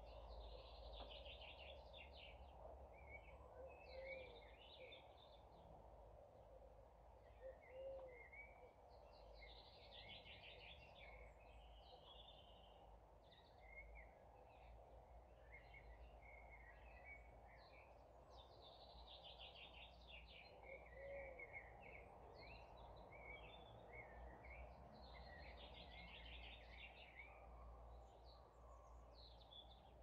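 Faint evening birdsong in the countryside: small birds trilling and chirping in bursts every few seconds, with a few short low calls in between, over a steady low background hiss.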